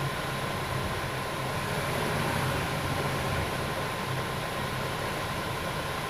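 Steady mechanical hum with an even hiss and a thin, steady high tone, unchanging throughout.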